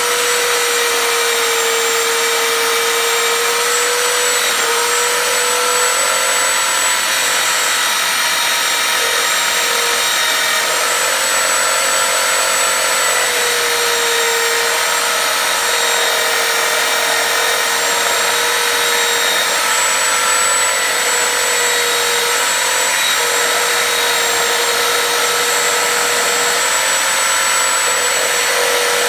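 Corded electric drill running steadily in a bench stand, spinning an abrasive wheel against a rusty steel hammer head to scrub the rust off; a constant motor whine over the hiss of the wheel rubbing on the metal, its pitch dipping slightly now and then as the hammer is pressed in.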